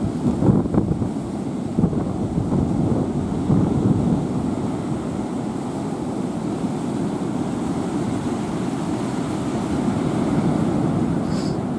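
Typhoon wind rushing and buffeting the microphone, a steady, loud noise with gusty swells. A brief faint high chirp sounds near the end.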